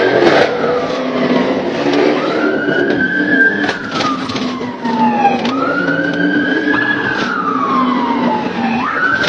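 Police car siren in wail mode: the pitch climbs quickly, then slides slowly down over about three seconds and starts again, about three cycles in all.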